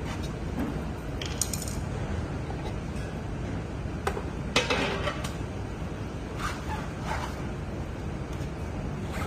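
Tools and metal parts clinking and clattering several times over a steady low rumble; the loudest clatter comes about four and a half seconds in.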